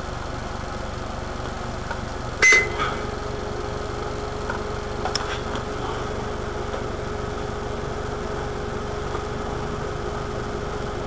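Steady electrical hum and hiss, broken about two and a half seconds in by a sharp click with a short high beep, after which a steady low tone joins the hum.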